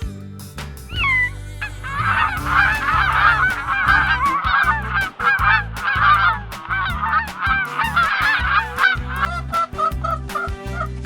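Geese honking: a couple of single calls, then a flock honking over one another for about seven seconds, thinning to shorter, sparser calls near the end.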